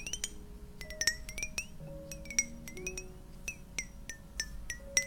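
Small glass cola bottle tapped rapidly and irregularly by fingers, giving sharp clinks whose ringing tone slides up and down in pitch. Soft background music plays under it.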